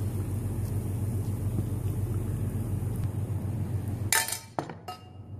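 Steady low kitchen hum, then a single sharp clink about four seconds in, a serving spoon knocking on the china plate while gravy is spooned over the food. The hum drops away briefly just after.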